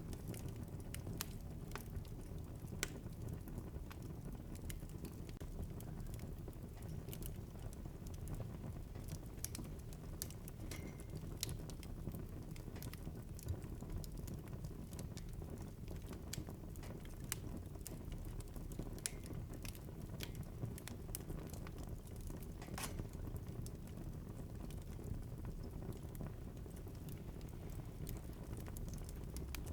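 Fire crackling in a fireplace: irregular sharp pops and snaps, several a second at times, over a steady low rush of the flames.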